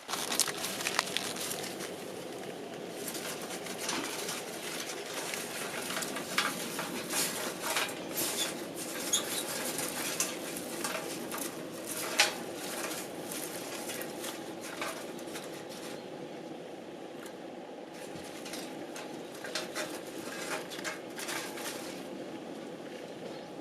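Wood fire burning in a Picogrill-style fire pit: a steady rush of flame with frequent sharp crackles and pops of the burning wood.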